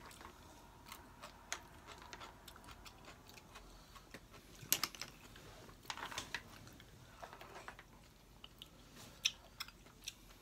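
Quiet eating sounds: scattered light clicks of wooden chopsticks against the pot and bowls, with chewing.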